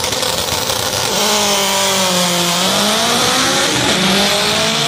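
Honda drag car's engine held at high revs at the starting line, then launching about halfway through, its pitch climbing steadily as the car accelerates down the strip.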